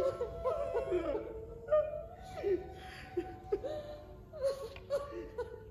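A person's wordless vocal sounds in short broken bits with rising and falling pitch, over soft background music.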